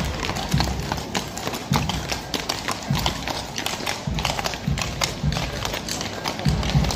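Many horses' hooves clip-clopping on a paved street, irregular overlapping clicks with dull low thuds among them.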